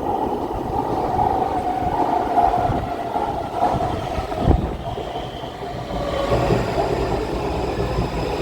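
Taipei Metro C341 train running, a steady rumble of wheels and running gear, with one short thump about four and a half seconds in. A steady high whine of several tones from the traction equipment comes in after about six seconds.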